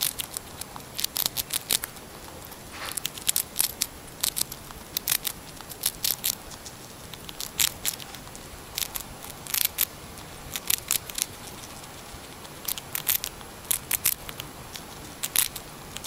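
Golden (Syrian) hamster gnawing and crunching a small hard round biscuit: crisp, sharp clicking bites in short clusters with brief pauses between them.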